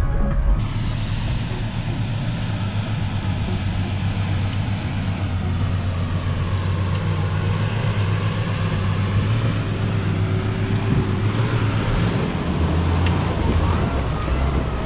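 Off-road vehicle running: a steady low engine drone under a haze of road and wind noise. Background music cuts off about half a second in.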